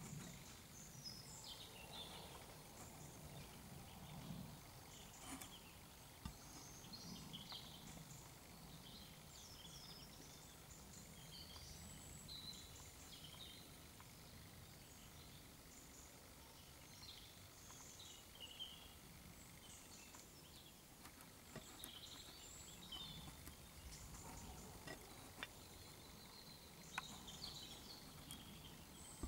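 Near silence: a quiet outdoor background with faint, scattered bird chirps and trills from a distance, over a low rumble.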